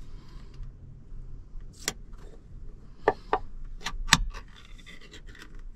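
A small metal tin of smoked salmon being opened by hand: a few sharp metallic clicks and snaps as the lid is worked loose and peeled back, the loudest about four seconds in.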